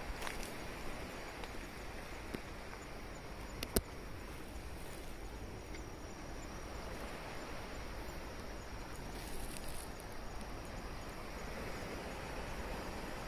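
Steady outdoor night background noise with faint insect chirping, and one sharp click about four seconds in.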